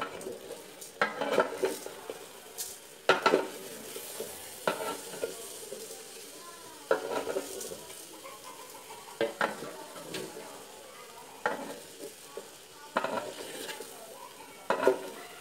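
Wooden spatula stirring and scraping rice around a metal pot, in irregular strokes every second or two, over a steady sizzle of the biryani mixture frying.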